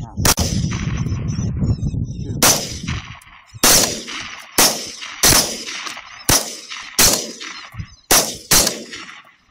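A string of about ten rifle shots fired in quick succession at a fox, mostly under a second apart, each with a short echo; a heavy low rumble follows the first shot.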